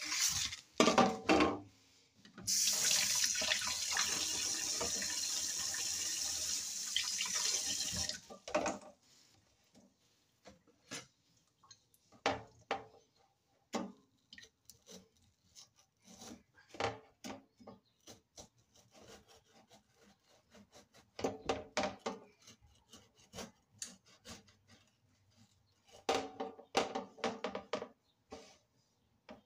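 A kitchen tap runs into a stainless steel sink for about six seconds, starting a couple of seconds in and cutting off sharply. A few loud knocks come before it, and after it scattered light clicks and knocks as the tomatoes are handled and cut with a knife on a plate.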